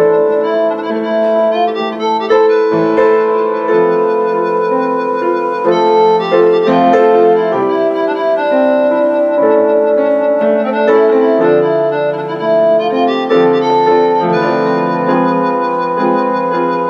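Instrumental music with no singing: a slow, held violin-like melody over piano chords, the notes changing every second or so.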